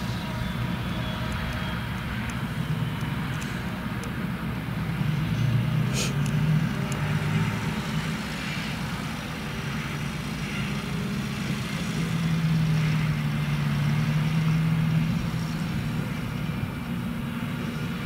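Heavy farm diesel engines running as a Claas Jaguar forage harvester and tractors drive past on a road, a steady low hum. The hum swells twice, most strongly in the middle as a nearer tractor passes close by.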